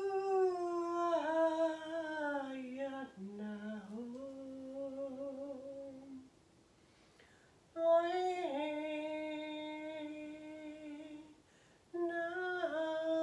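A woman's voice toning in long held hums: the first note slides down in pitch and then settles, a second note follows after a short breath pause, and a third begins near the end.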